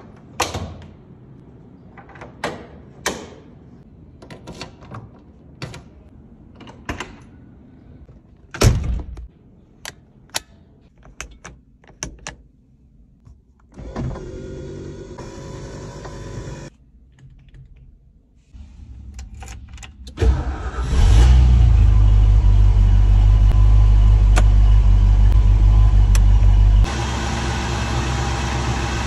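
Clicks and metal latch knocks from the 1968 Mustang fastback's hood pins and fittings. About fourteen seconds in, an electric power window motor runs for nearly three seconds. Around twenty seconds in, the car's V8 starts and runs with a loud, deep rumble, which drops to a lower level near the end.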